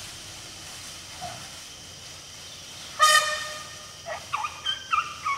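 Asian elephant trumpeting once, loud and horn-like, about three seconds in, as a threat display during a mock charge. Several short high calls follow near the end.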